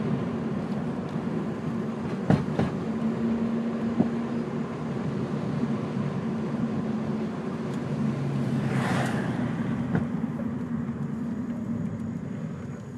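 2002 Ford Focus driving with steady engine and road noise, punctuated by a few sharp clunks from the front suspension: two close together a couple of seconds in, another a moment later, and one more near the end. The clunk comes from a bottomed-out front coilover. A brief rushing sound passes about two-thirds of the way through.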